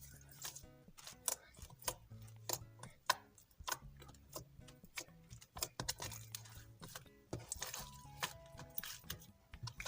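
Slime being squished and mixed by hand, with frequent sharp clicks and pops, over soft background music with held notes.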